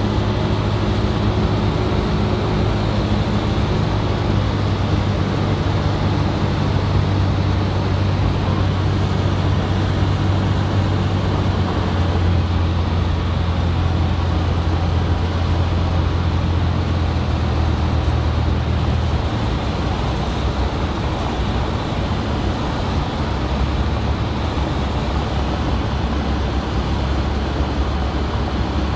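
Single-engine light aircraft's piston engine and propeller droning steadily, heard inside the cabin on approach for a short-field landing. The engine note drops lower about two-thirds of the way through as power comes back, then rises again near the end.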